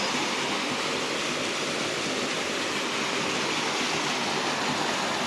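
Steady rush of water from a small waterfall and stream, its flow reduced and low in the dry season.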